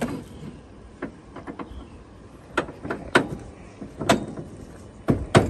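Irregular sharp knocks and clanks, about a dozen hits spread unevenly, the loudest two close together near the end.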